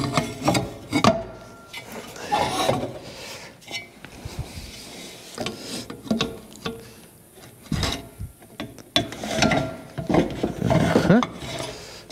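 An engine cooling fan and its shroud pieces scraping, rubbing and clunking against each other as they are worked into place by hand, with irregular clicks and short squeaks.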